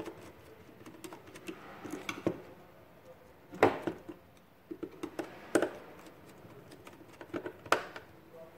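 Irregular light clicks and knocks of a small plastic contactor and its wires being handled on a desk while a wire is fitted to the A1 coil terminal. Three sharper knocks come about three and a half, five and a half and seven and a half seconds in.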